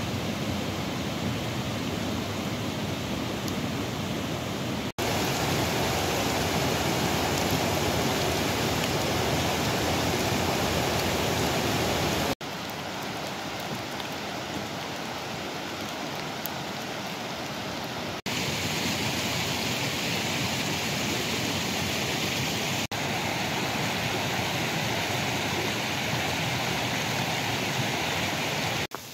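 Rushing woodland stream tumbling over rocks, a steady loud rush of water. It changes level abruptly several times as the recording cuts from one take to the next.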